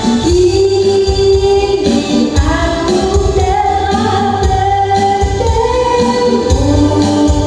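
Loud music with a singer holding long notes over a heavy, pulsing bass beat.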